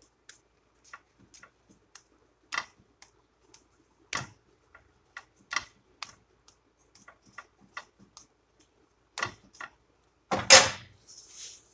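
Quesadilla frying in a flat nonstick pan: scattered, irregular crackles and ticks of the fat spitting under the tortilla. A louder clatter about ten and a half seconds in, then a brief hiss.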